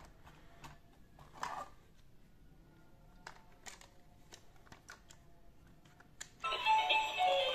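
Hard plastic toy being handled, with scattered light clicks and taps and a short rustle about 1.5 s in. Near the end, the battery-powered Hello Kitty dancing doll switches on and starts playing an electronic tune from its built-in speaker, much louder than the handling.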